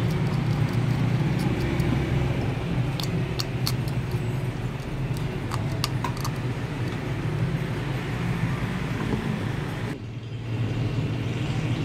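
Steady low background rumble, with a handful of small sharp clicks about three seconds in and again around five to six seconds in as a screwdriver works the terminal screws of a plastic switch-and-socket board.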